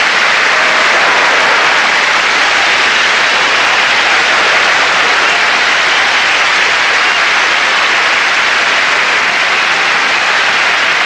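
Studio audience applauding, a loud, steady clatter of many hands.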